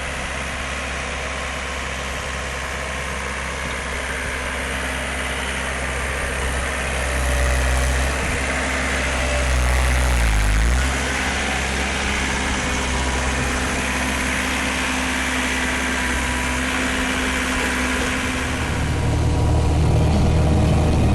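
Engine running steadily. About ten seconds in, its pitch dips briefly and comes back up, and it grows louder near the end.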